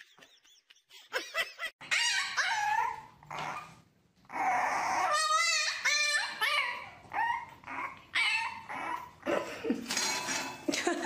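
Puppies whining and yipping in a run of short, high cries that bend up and down in pitch, with a brief pause about four seconds in.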